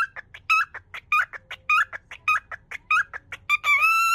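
Cockatiel mimicking the Japanese phrase "yoku kita ne" ("welcome"), blurting short chirpy fragments of its opening over and over, about two a second, without ever finishing the phrase. Near the end it gives one longer, held whistled note.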